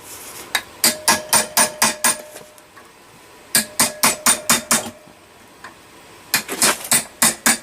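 Hammer driving a chisel into a hot railroad spike held in a vise, cutting the mouth of a ram's head. There are three quick runs of about eight ringing metal-on-metal blows each.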